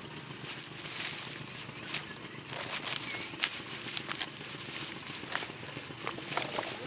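Dry rice stalks rustling and crackling as they are handled during the harvest, with many short, irregular snaps and crackles over a steady rustle.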